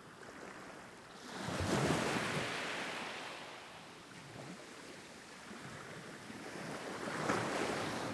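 River water rushing, with wind buffeting the microphone; the noise swells about a second and a half in and again near the end.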